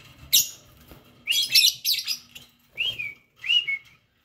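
Lovebirds chirping in short, sharp, high calls: one at the start, a quick cluster about a second in, then two separate calls near the end that dip in pitch.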